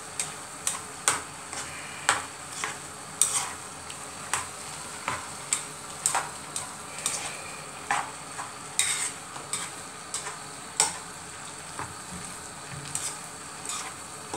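Stirring food in a small cooking pot: a utensil scraping and knocking against the pot in irregular strokes, about one or two a second, over a steady hiss from the cooking food.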